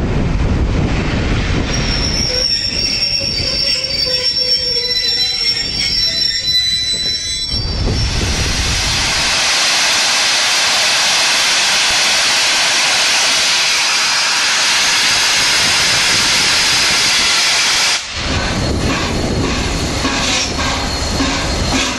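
Train wheels squealing on the rails for a few seconds as the coaches pass. Then a long, steady, loud hiss of steam blowing from the open cylinder drain cocks of the LNER Peppercorn A1 Pacific steam locomotive 60163 Tornado. After a sudden change near the end, there is rumbling and clanking as the locomotive moves slowly past.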